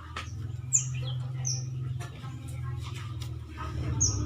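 A small bird chirping: short, high, falling chirps, three times, over a steady low hum.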